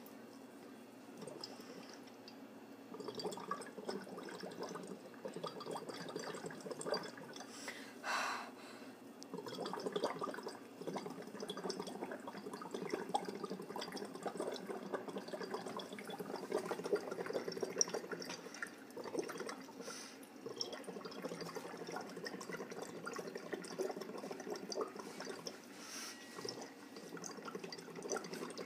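Breath blown through a drinking straw into phenol-red-dyed water in a glass bottle, bubbling and gurgling in uneven spurts, with a short breath about eight seconds in. The breath's carbon dioxide acidifies the water, turning the indicator from orange to yellow.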